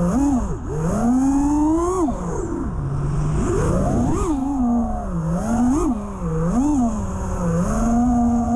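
Five-inch FPV freestyle quad's four brushless motors and props whining, the pitch swooping up and down again and again as the throttle is punched and chopped, over a steady rush of wind.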